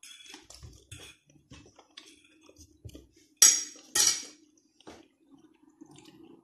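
Small mouth clicks of someone chewing, then a metal fork set down on a ceramic dinner plate with two sharp clinks about three and a half seconds in, the loudest sounds. A faint steady hum runs underneath.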